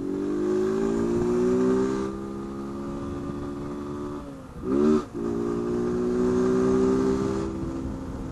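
Honda CG 160 Fan's single-cylinder four-stroke engine, running with its air-intake hose removed, pulling under acceleration. The pitch climbs and holds, drops about four seconds in with a short loud rev just after, then climbs and holds again.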